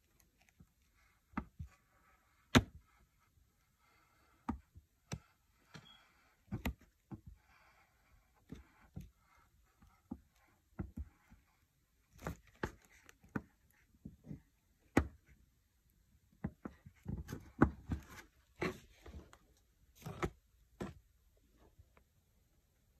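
Scattered taps, clicks and light scraping as a hot soldering iron tip is worked along the seam of a PLA 3D-printed helmet, melting the plastic edges together, with a denser run of sharper knocks near the end.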